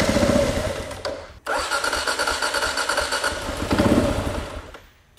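Kawasaki KLR650 single-cylinder engine, fed butane instead of petrol, being cranked and sputtering as it tries to run, not enough fuel getting in to keep it going. The first try cuts off suddenly about a second and a half in; a second runs about three seconds and dies away near the end.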